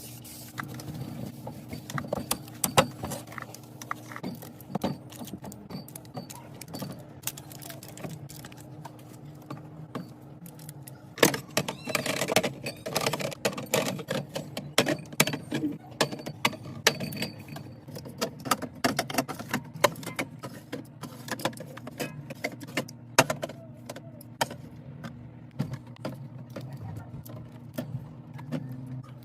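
Clicks, taps and clatter of containers and packaging being handled and set into a fridge, over a steady low hum. The handling gets busier and louder about eleven seconds in.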